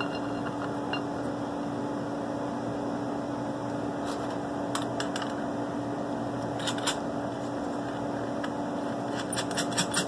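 Light metal-on-metal clicks and taps as thumbscrews are picked up and set onto the studs of an aluminium holding fixture's top plate: a few scattered clicks midway, then a quick cluster near the end. A steady electrical hum runs underneath.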